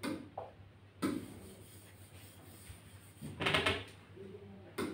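A few sharp taps of a stylus on an interactive touchscreen board: one at the start, one about a second in and one near the end. About three and a half seconds in comes a brief, louder rustling noise.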